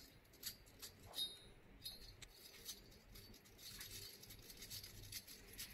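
Faint scattered ticks and scratches of a thin brush being worked down between the aluminium fins of a graphics card heatsink (MSI GTX 1050 Ti).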